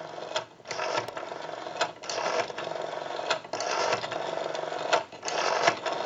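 Rotary dial of an ITT 554 telephone being wound round and whirring back on its return, several digits in a row with short pauses between them. Each return runs smoothly, the sign of a dial in good working order.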